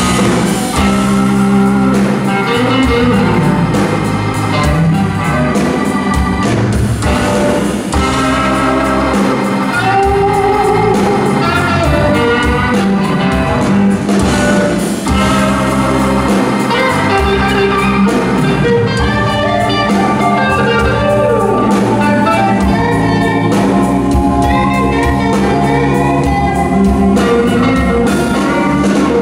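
Live blues band playing an instrumental opening: electric guitar lead over a drum kit and sustained backing notes.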